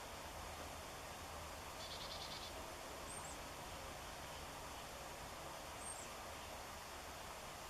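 Small songbirds calling: a short buzzy chatter about two seconds in, then two thin, very high down-slurred notes a few seconds apart, over a steady low background hum.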